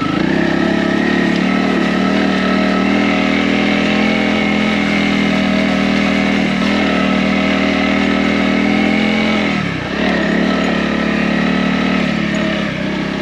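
Honda CRF250 single-cylinder motorcycle engine running at a steady, even pitch. The pitch dips briefly about ten seconds in, then steadies again.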